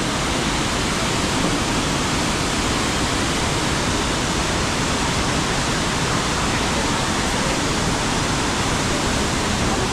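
Steady, even rush of a waterfall, unbroken throughout.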